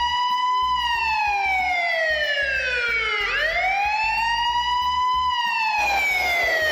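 Siren-style phone ringtone: a wailing tone that rises quickly and then slides slowly down, repeating about every three seconds over low stepped bass notes.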